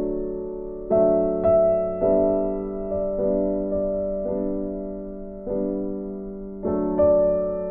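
Slow background piano music: soft chords struck about once a second, each left to ring and fade.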